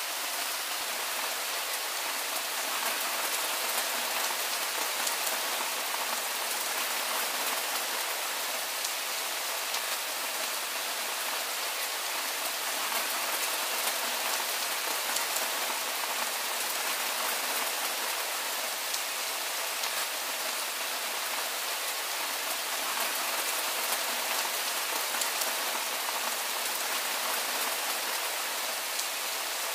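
Soft, steady rainfall: an even hiss of rain with a fine patter of individual drops, unchanging throughout.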